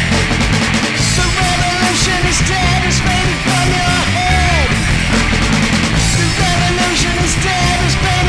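Loud punk rock music from a full band, with short falling pitch slides repeating in the middle of the sound and a steady beat of cymbal strokes.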